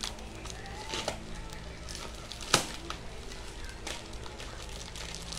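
Scissors snipping through a plastic bubble-wrap parcel: a few sharp separate snips, the loudest about halfway through, over a low steady hum.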